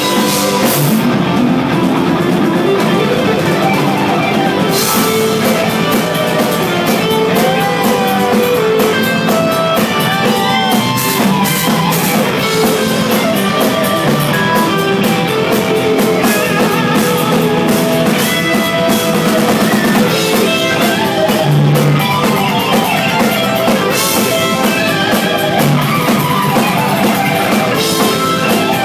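Live instrumental metal: a lead electric guitar plays a fast solo over a rock drum kit, with a few bent notes in the first half. Recorded loud on a phone at the front of the stage, so the sound is rough.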